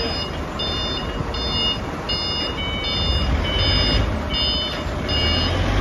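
A 10-ton container-style forklift reversing: its reversing alarm beeps about once every three-quarters of a second over the low running of its engine, which swells briefly twice.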